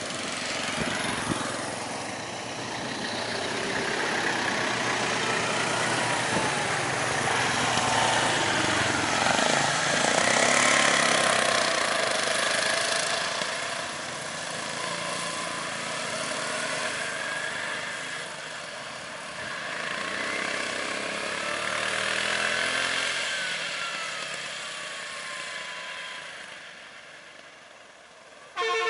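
Vehicle engines idling and running slowly in a queue of traffic, their pitch rising and falling every few seconds as they rev and ease off.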